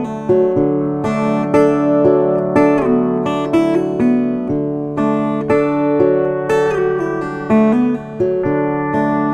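Background music: acoustic guitar, plucked and strummed chords at an even pace.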